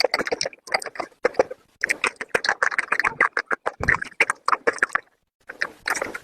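Slate pencils being bitten and chewed: rapid, crisp crunching with short pauses, the first about two seconds in and a longer one about five seconds in.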